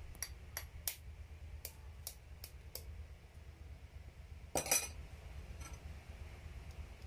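A metal spoon tapping an egg shell over and over to crack it, with light clinks, about eight sharp taps in the first three seconds. A louder, rougher crackle follows a little over four and a half seconds in.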